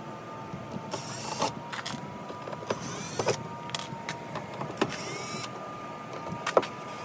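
Cordless drill-driver whirring in about three short bursts as it backs the screws out of a plywood van door panel, with small clicks and knocks of the screws and bit in between.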